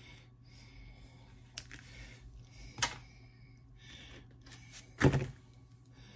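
Handling of vinyl model-kit parts on a workbench: a few light clicks, a sharper click near the middle, and a louder thunk about five seconds in.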